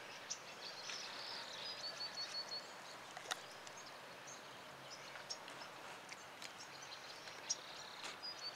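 Quiet outdoor ambience: a faint steady hiss with distant bird chirps, including a quick run of five or so high notes twice, and a few faint clicks.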